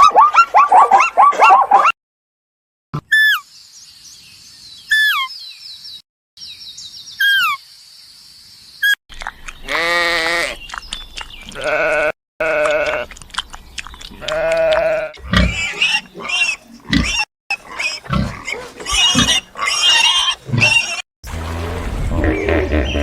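Several bleats from sheep or goats, each a wavering call of about a second, heard one after another with abrupt cuts between them. Near the start come a few short, high, falling calls.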